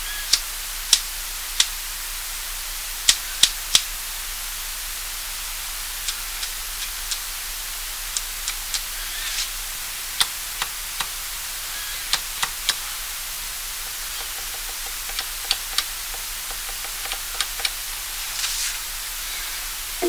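Cherry silent red mechanical keyboard switches pressed by finger one after another, giving short clicks, now single, now two or three close together, over a steady hiss. One switch has its stock spring and the other a lighter SPRiT 20CN 25S spring (20 g actuation, 25 g bottom-out).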